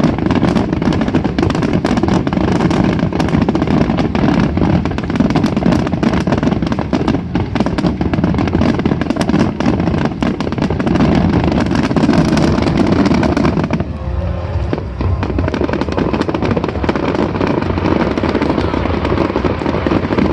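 Fireworks crackling and popping in a dense, continuous run, with strong wind buffeting the microphone underneath as a heavy rumble.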